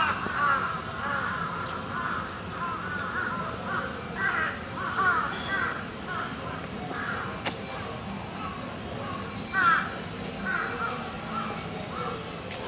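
Crows cawing, a series of short harsh calls repeated every second or so, loudest right at the start and again about ten seconds in.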